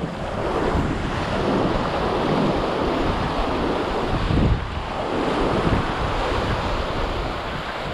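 Surf breaking and washing on the beach, with wind buffeting the microphone.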